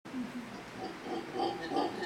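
Mantled howler monkeys calling, a run of deep, grunting calls that grows louder.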